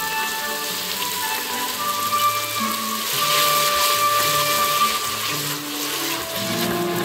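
Background music with held notes over a steady sizzling hiss of chopped onion, tomato and chilies frying in the pot as yogurt is stirred in; the hiss is strongest in the middle.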